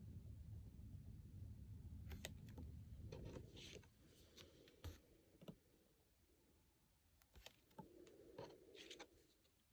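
Faint handling of oracle cards: soft clicks and short sliding swishes of card stock being moved and laid down one after another, with a low hum in the first few seconds.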